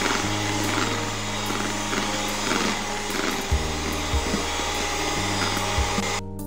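Electric hand mixer running, its beaters whipping cream to stiff peaks in a plastic bowl; the motor stops near the end. Background music plays under it.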